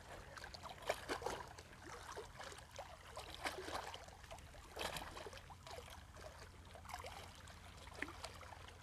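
Small waves lapping and trickling at a rocky sea-dike shore, with faint scattered taps.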